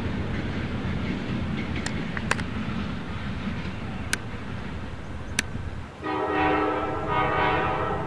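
Low rumble of the approaching diesel locomotives with a few sharp clicks, then the horn of the lead CSX EMD GP40-2 sounds about six seconds in and holds for about two seconds as the engines near the grade crossing.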